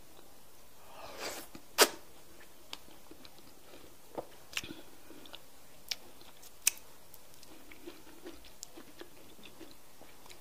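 Close-miked eating of semolina fufu with slimy okra soup: wet mouth clicks and smacks while chewing, scattered through, the sharpest a little under two seconds in.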